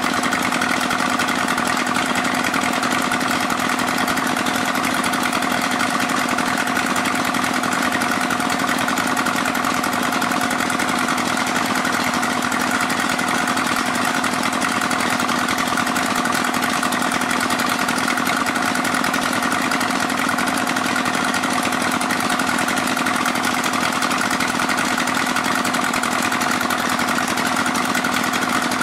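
Small petrol engine of a portable 'alkon' pump running steadily at a constant speed while pumping sand. It holds the same engine note throughout, with no revving or stopping.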